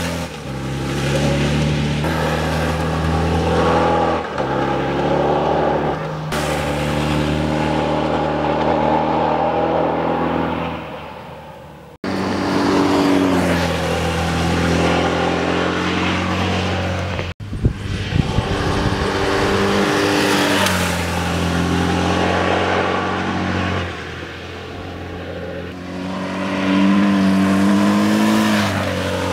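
BMW R1100GS air-cooled flat-twin engine passing close by through bends, the pitch falling as it goes past and rising again as the rider opens the throttle out of the corners. Several passes are cut together, with abrupt breaks twice.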